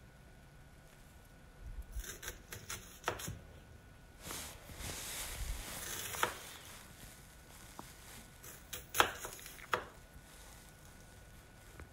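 Chef's knife chopping a white onion on a cutting board: two bursts of quick, sharp knife strikes on the board, about two seconds in and about nine seconds in, with a softer rustling stretch between them.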